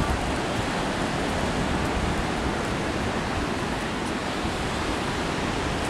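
Steady wash of sea surf breaking on the beach, with wind buffeting the microphone in a low, uneven rumble.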